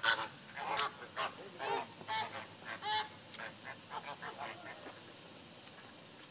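A flamingo flock honking: many short, nasal, goose-like calls overlapping, thinning out after about three seconds and dying away by about five seconds.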